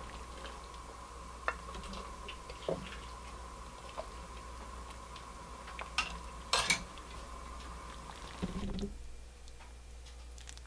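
Metal ladle clinking against a stainless steel pot and a ceramic bowl as chowder is ladled out and poured, a few scattered clinks with the loudest about six and a half seconds in. A faint steady high hum in the background stops about nine seconds in.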